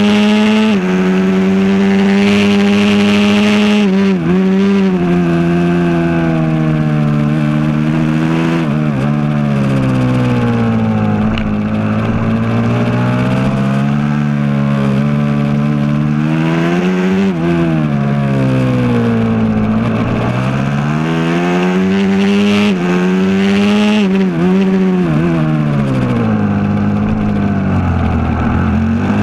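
Aprilia SXV 450 V-twin supermoto engine, heard on board at racing speed: its pitch climbs as it accelerates and falls away as it slows for corners, over and over, with quick dips and rises of revs through the turns.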